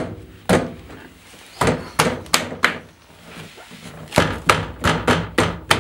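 Door card of a Mk1 Mazda MX-5 door being pressed home, its plastic poppers knocking into the door: a string of sharp thuds, about five spread through the first half and a quicker run of about six near the end.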